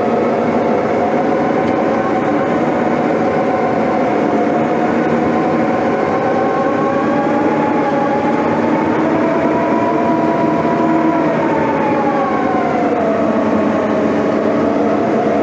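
Case 1150M crawler dozer heard from inside its very loud cab: the diesel engine and drivetrain run steadily with a whining tone. The whine rises in pitch about halfway through and drops back about two-thirds of the way in.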